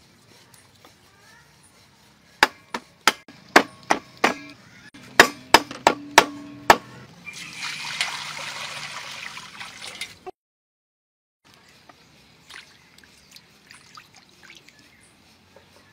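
A run of about a dozen sharp, ringing knocks over four seconds, then water poured into an empty wok: a steady rushing splash of about three seconds that cuts off suddenly.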